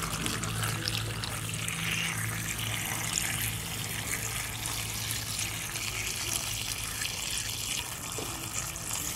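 Water poured in a steady stream into a pot of stewed pork bones, potatoes and green beans, splashing onto the food as the pot fills with broth.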